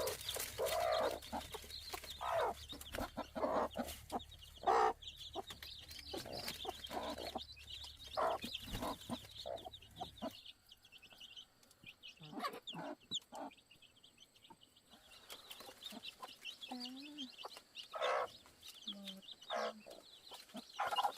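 A mother hen clucking over her newly hatched chicks while they peep busily in high, rapid calls. A low hum underneath stops about halfway through.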